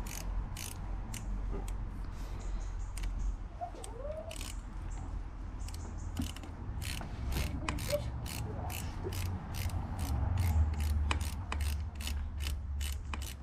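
Ratchet wrench clicking as the rear brake caliper's mounting bolts are loosened to re-centre the caliper: a run of sharp clicks, about two to three a second, coming faster in the second half.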